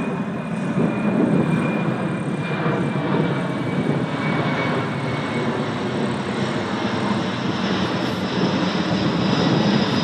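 The turbofan engines of a C-17 Globemaster III jet transport running loud and steady as it flies past. A high whine slowly drops in pitch over the first few seconds.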